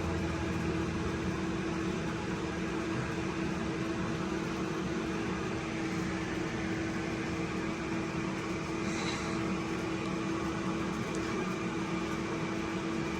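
Steady mechanical hum with a constant low tone under an even hiss, with one brief faint high sound about nine seconds in.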